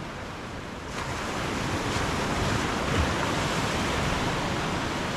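A steady rushing noise, like wind or running water, that swells about a second in and holds.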